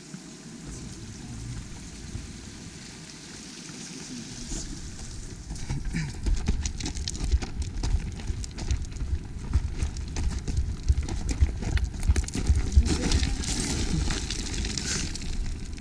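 Running footsteps on a rocky gravel trail, with wind buffeting the action camera's microphone. The footfalls and wind rumble grow louder about five seconds in.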